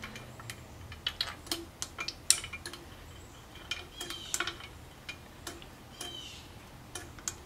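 Pump oil can being worked over an engine's exposed rocker arms and valve springs: irregular light metallic clicks and ticks, with a short hiss about six seconds in.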